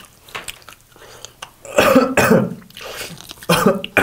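A man coughing in short bursts, about two seconds in and again near the end, from the heat of spicy fried chicken.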